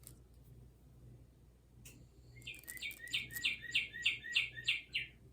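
Singing bird clock playing a recorded bird song: a quick trill of about ten falling chirps, roughly four a second, starting about two seconds in.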